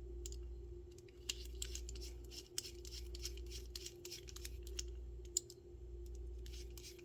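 Small metal clicks and light scrapes as tiny screws and a ratchet back plate are handled and driven in with a small screwdriver, over a steady low hum.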